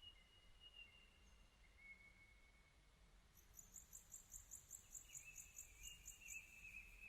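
Faint outdoor ambience with thin whistled bird calls. About halfway in, a high-pitched chirping starts, repeating about four times a second for some three seconds.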